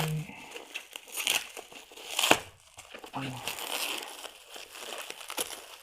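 Packaging crinkling and crackling in irregular bursts as it is handled and pulled open, with one sharper crackle a little after two seconds in.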